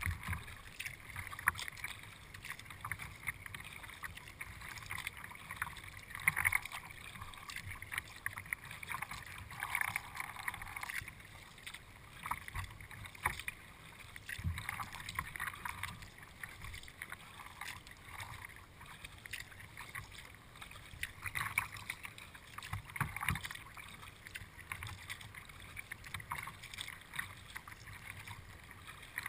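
Kayak being paddled across a lake: water splashing and lapping against the hull, with uneven paddle splashes coming and going.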